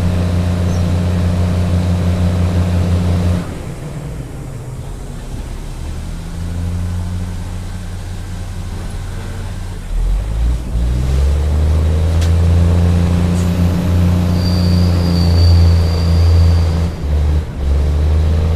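A large engine running steadily with a deep hum. Its note drops and quietens about three and a half seconds in, then picks up and grows louder again about ten seconds in, with a thin high squeal briefly near the end.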